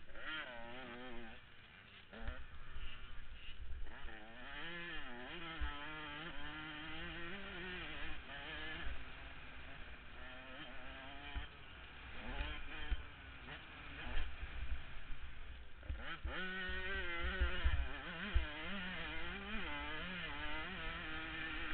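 KTM 105 two-stroke motocross engine revving hard, its pitch swinging up and down rapidly through throttle and gear changes. It drops off briefly about three-quarters of the way through before revving up again, with low thumping noise underneath.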